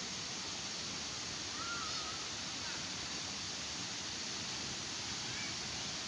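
Steady rush of water from a waterfall and its fast-flowing stream, an even hiss with no rhythm. A few faint, brief high calls sound over it, around two seconds in and again near the end.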